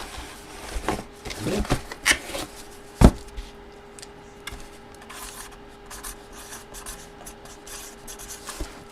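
Trading cards being handled on a table: rubbing and sliding sounds with small clicks, and one sharp knock about three seconds in.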